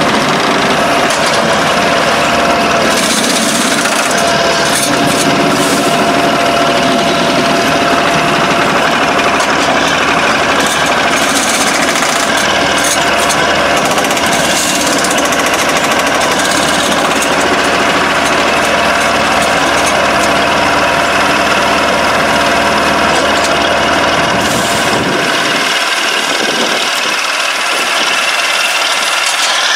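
Engine and hydraulics of a rail-mounted tie-gang track machine running loud, a dense steady mechanical noise. About five seconds before the end the deep rumble drops away and a lighter mechanical noise carries on.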